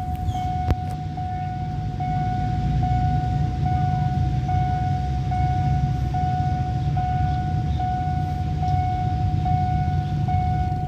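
Level crossing warning alarm sounding a steady tone that breaks briefly about every 0.8 s, signalling that a train is due and the barriers are down. Under it runs a low rumble of engines.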